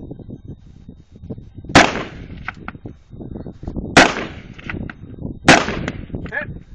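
Three loud gunshots, the second about two seconds after the first and the third a second and a half after that, each with a short ringing tail.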